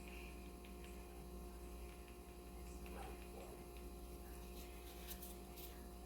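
Steady low electrical hum, with a few faint clicks about five seconds in.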